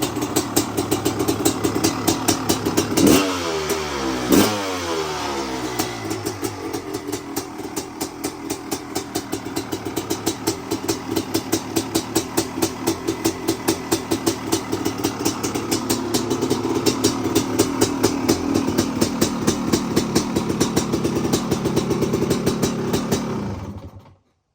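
1995 Honda CR500's two-stroke single-cylinder engine idling with a rhythmic, uneven firing beat. It is blipped twice, about three and four and a half seconds in, and the revs fall back after each. The sound cuts off suddenly near the end.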